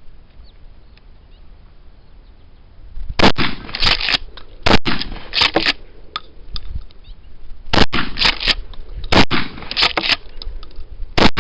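A Norinco HP-9 12-gauge pump-action shotgun fired in a rapid string of loud shots, starting about three seconds in, with the pump racked between shots.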